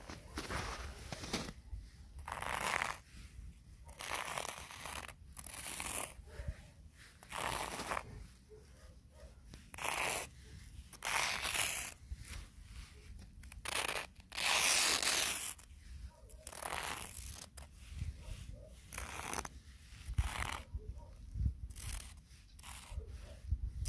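Footsteps crunching through snow, one step about every second or so in an uneven walking rhythm, a few steps louder than the rest.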